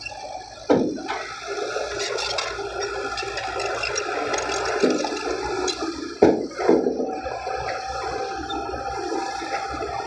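Small crawler bulldozer and dump truck working loose soil: diesel engines running under a steady rushing, scraping noise of earth being pushed. Two loud knocks stand out, about a second in and about six seconds in.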